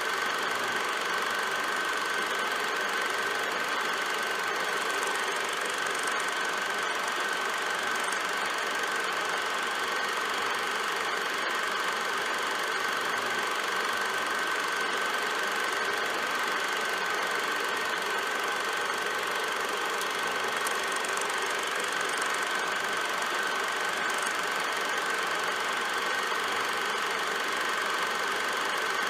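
Film projector running steadily: a constant mechanical whir with a steady high tone.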